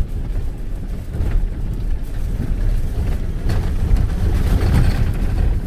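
Truck driving over beach sand, a steady low rumble.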